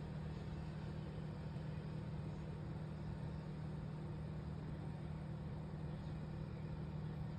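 A steady low hum with an even hiss over it, unchanging throughout; no footsteps or other distinct sounds stand out.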